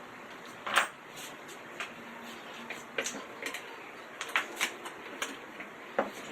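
Irregular light clicks and knocks: one sharper knock a little under a second in, then a scattered run of quicker ticks in the second half.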